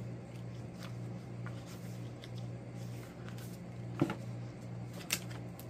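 Pages of a paperback book being leafed through by hand: soft paper rustles, with a sharp flick about four seconds in and another about a second later. A steady low hum runs underneath.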